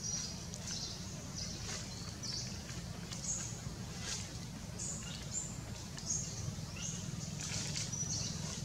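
A dozen or so short, high-pitched animal chirps, irregularly spaced, over a steady low hum.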